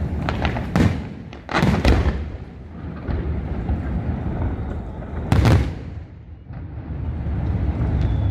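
Aerial fireworks shells bursting: a single bang, then a quick cluster of reports between one and a half and two seconds in, and the loudest boom about five seconds in, over a steady low rumble.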